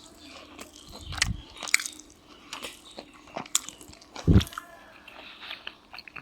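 Close-up chewing and mouth sounds of someone eating chicken biryani, with scattered sharp clicks, a low thump about a second in and a louder thump about four seconds in.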